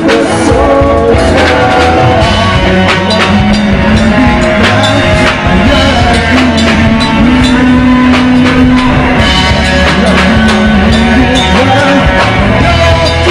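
Live rock band playing loudly and steadily, with drums, bass and guitar, and held melody notes over the beat.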